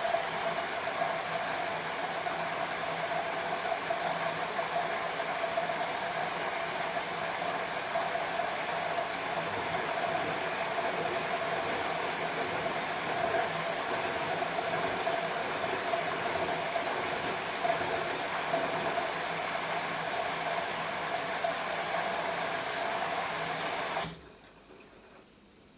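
LG F10B8QD1 direct-drive front-loading washing machine running with a steady whir and a steady high whine. It cuts off abruptly near the end.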